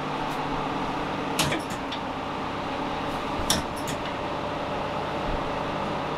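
Steady mechanical hum with two short, light metallic clinks, about a second and a half in and again near three and a half seconds.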